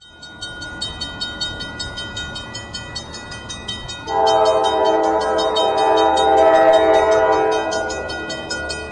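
Grade-crossing bell dinging steadily and rapidly, joined about four seconds in by a locomotive's air horn sounding one long chord of several tones, which is the loudest sound and fades away near the end.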